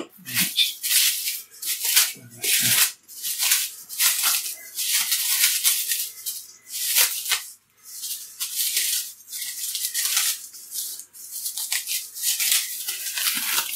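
Plastic cling film crinkling and rustling in irregular bursts as it is handled to cover a bowl of yeast dough.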